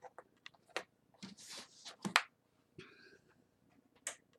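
Handling of a handmade paper journal: paper rustling with a scatter of sharp taps and clicks, the loudest about two seconds in.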